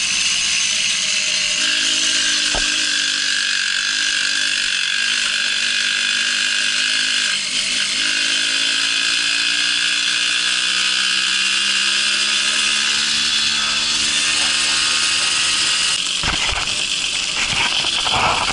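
Babetta moped's small two-stroke single-cylinder engine running steadily, its pitch drifting slowly. A burst of knocks and rattles comes near the end.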